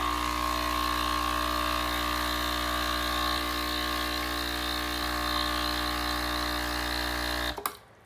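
Breville Barista Express espresso machine's vibratory pump humming steadily as water streams from the group head into a plastic measuring jug. The hum and the pouring cut off suddenly near the end as the machine stops itself at its factory-default volume of about 4 ounces.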